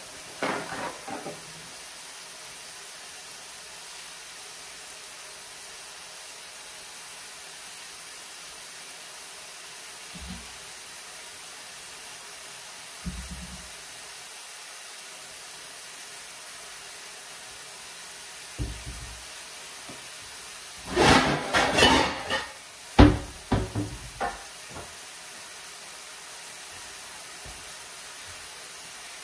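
Ground deer-meat patties sizzling steadily as they fry in oil in a pan over low-medium heat. A few soft knocks come early on, and a loud flurry of kitchen clatter comes about three-quarters of the way through.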